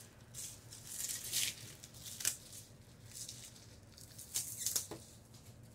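Plastic wrap crinkling and rustling in several short bursts as it is peeled off a lightsaber's blade tube, with a couple of sharper clicks among them.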